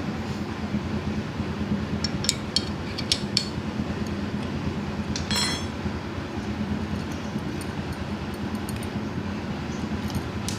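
A manual wood hand plane being taken apart, its metal blade and fittings clicking a few times and then giving one ringing metallic clink, over a steady low background rumble.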